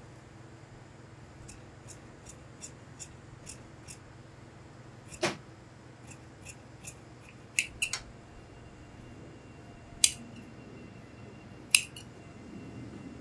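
Large steel tailor's shears cutting through pinstripe suit-trouser fabric: a run of short, even snips about two or three a second, then a few louder, sharper clacks of the blades. The cut trims the front trouser panel along its marked line.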